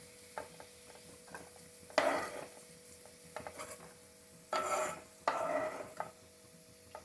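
Metal spatula scraping and clinking in a kadai as fried vegetables are scooped out of the oil, with a few sharp scrapes among lighter taps and a faint sizzle.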